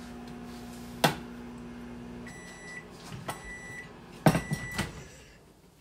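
Microwave oven running with a steady hum that stops about two seconds in, followed by three short high beeps about a second apart signalling the end of the cooking cycle. A sharp click comes near the one-second mark and a loud knock with the third beep.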